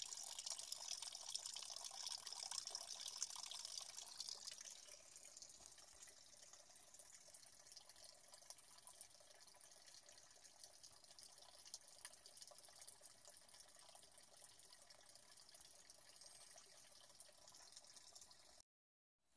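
A stream of water pouring into a small glass aquarium and splashing on the water surface, loudest for the first four seconds or so, then fading to a fainter steady watery hiss that stops suddenly near the end.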